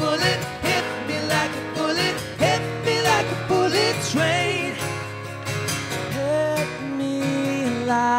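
Live acoustic band music: two acoustic guitars strumming, a hand-held metal shaker keeping a steady beat, and wordless sung vocal lines and harmonies.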